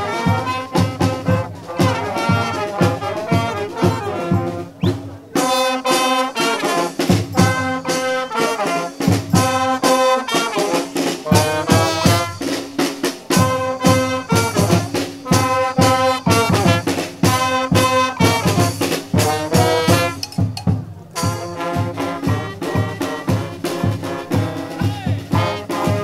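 Street brass band playing live: trumpets and trombones over a steady drumbeat. The horns pause briefly twice while the drums keep going.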